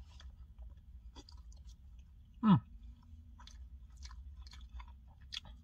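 A person chewing a mouthful of steak and rice bowl close to the microphone: wet, irregular clicks and small crunches, over a low steady hum. About two and a half seconds in there is a short hummed 'mm' that falls in pitch.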